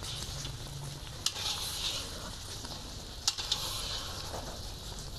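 A spatula stirring and scraping thick sohan halwa mixture around an iron wok, the hot ghee sizzling with each stroke. The spatula knocks sharply against the pan twice, about a second in and a little past three seconds.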